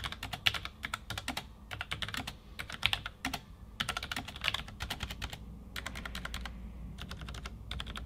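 Typing on a Logitech MX Mechanical Mini for Mac keyboard with tactile mechanical switches: quick runs of key clicks with short pauses between them, thinning to a few separate key presses near the end.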